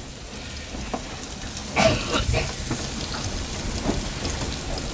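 Chopped onions and tomatoes sizzling in a frying pan, with a spatula stirring and scraping through them; one louder scrape about two seconds in.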